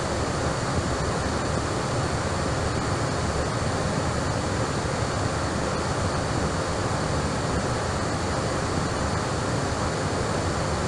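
Steady, even rushing hiss with a few faint steady tones, unchanging throughout: the background noise of an air-traffic-control radio recording in a gap between transmissions.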